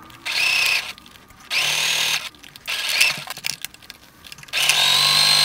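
Electric sewing machine stitching through heavy cotton denim in about four short runs, stopping and starting between them. Each run carries a steady motor whine that rises a little as it speeds up.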